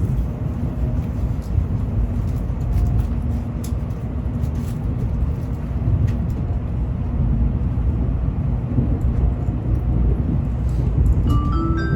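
Steady low rumble inside the cabin of a Tokaido Shinkansen Kodama train running. Just before the end, the onboard announcement chime begins, a short melody of bell-like notes that signals an announcement is coming.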